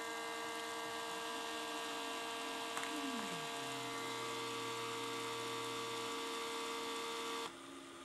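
Several lithium-ion tubular roller-shade motors running together, a mix of steady electric whines and hums. About three seconds in, one tone slides down in pitch and holds lower for a few seconds, and the loudest motor stops near the end.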